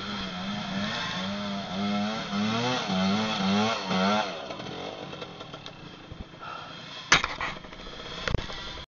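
Off-road trail motorbike engine revved hard in repeated bursts, its pitch rising and falling about twice a second for about four seconds, then dropping back to a lower running sound. Two sharp knocks near the end.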